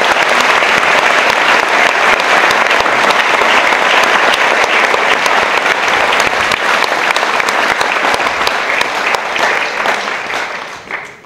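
Audience applauding: a sustained round of dense clapping that dies away near the end.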